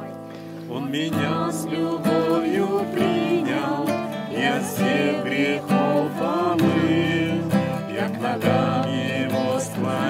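Acoustic guitar strummed in slow chords with singing of a Russian hymn.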